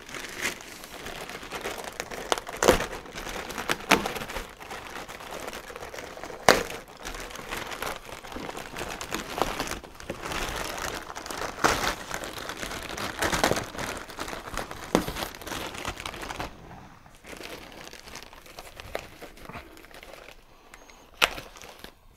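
Plastic wrapping crinkling and rustling as a long wrapped rear-spoiler part is lifted and handled, with sharp crackles now and then. It gets quieter over the last few seconds.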